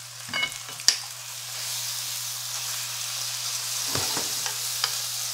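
Horumon, cabbage and yakisoba noodles sizzling steadily in a frying pan, with a sharp clack about a second in. Around four seconds in, chopsticks stir and loosen the noodles.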